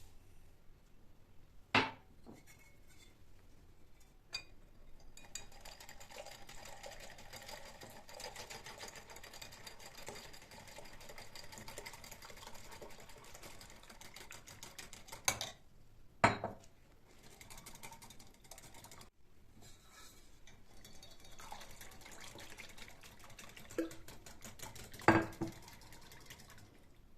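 Kitchenware being handled: about six sharp clinks and knocks spread out, with a faint steady hiss between them.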